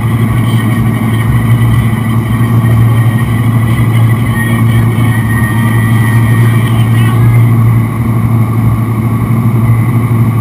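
Towboat engine running steadily under load, a loud, even low drone, over the rush of the churning wake.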